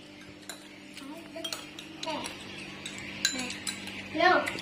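Metal spoons clinking and scraping against a frying pan and bowls, a scatter of sharp clinks. A short voice-like sound near the end is the loudest moment.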